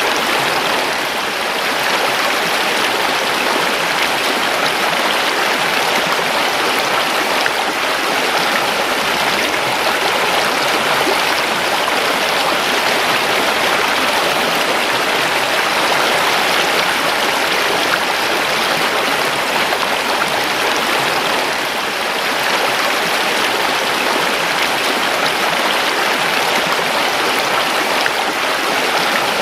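Creek water rushing and burbling over stones, a steady, full rush of running water.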